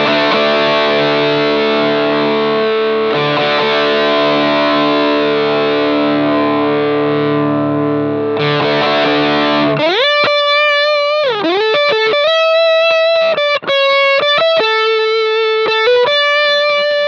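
Electric guitar played through a Sinvertek Drive N5 Plus distortion pedal, heavily distorted. Sustained chords ring for about ten seconds, then a single-note lead line follows with string bends and long held notes.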